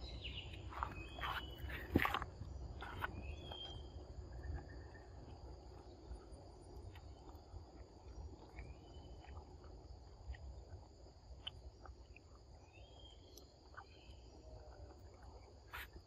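Insects droning steadily at two high pitches, with short high chirps scattered throughout and a few sharp clicks, the loudest about two seconds in.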